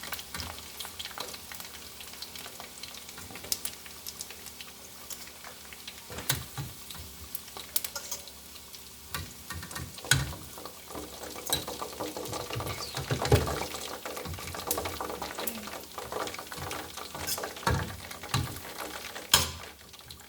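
Chicken pieces sizzling in hot frying oil in a pot, a steady hiss broken by scattered clicks and knocks of a utensil against the pot and bowl as the pieces are lifted out. The sharpest knock comes near the end.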